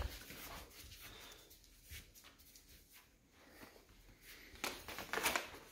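Rustling of a plastic dry-dog-food bag being handled, with a couple of louder crinkling bursts about five seconds in.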